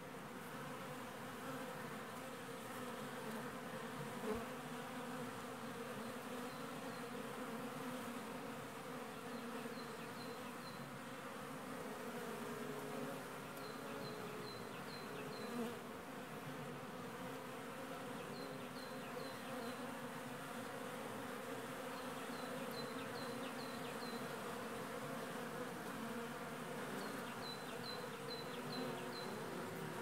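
Honeybees buzzing steadily in numbers at the hive entrances, out on their first flight of the year after winter. A small bird calls in runs of four or five short high chirps every few seconds.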